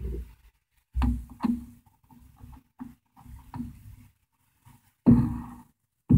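Several irregular dull thumps and knocks, each with a brief hollow ring, the loudest about five seconds in.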